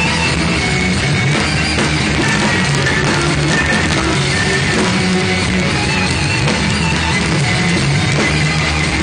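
Rock band playing live and loud: electric guitar and drum kit, steady throughout.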